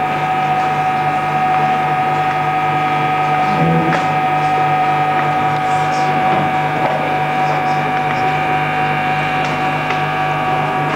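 Steady electrical hum and buzz from the band's amplification on stage, unchanging throughout, with a faint knock about four seconds in.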